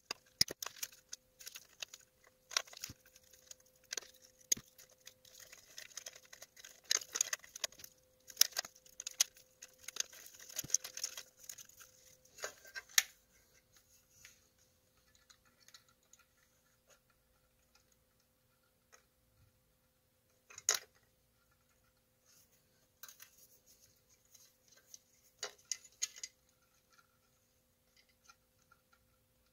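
Small clicks, taps and rustles of pliers and hands working wires and crimp connectors in a lamp's switch wiring, busiest in the first half. After that it goes quieter, with a faint steady hum and a few scattered clicks, one sharper, while a soldering gun is held to the joints.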